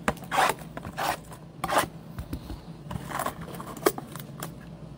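A 2024 Topps Chrome baseball blaster box being torn open and its packs pulled out by hand: a run of short ripping and scraping strokes of cardboard and wrapper, with one sharp click near the end.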